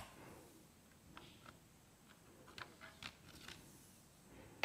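Faint, scattered light ticks and clicks of hands working a Pokémon card out of its tin packaging.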